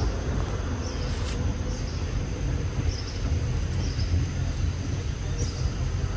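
Outdoor background noise: a steady low rumble under a thin, steady high whine, with short high chirps repeating about once a second.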